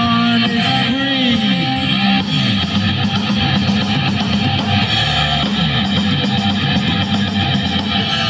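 Amplified electric guitar playing rock over drums, with notes bending and sliding in pitch.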